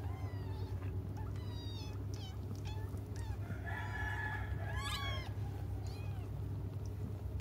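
Newborn kittens mewing: short, high-pitched, falling squeaks, repeated several times, with a longer wavering cry about four seconds in, over a steady low hum.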